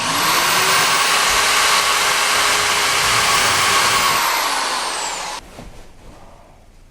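Power drill driving a drywall screw: the motor spins up at the start, runs at steady full speed for about five seconds, then winds down and stops.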